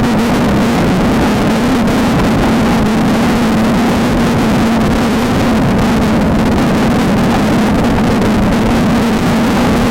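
Off-road race car engine running at steady high revs, its pitch wavering slightly up and down, under a constant rush of wind, tyre and chassis noise.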